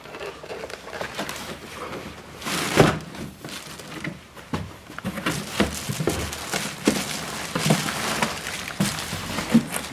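Packaging being handled as a boxed water ionizer is lifted out of its carton: irregular rustling and scraping with scattered knocks, the loudest a thump about three seconds in.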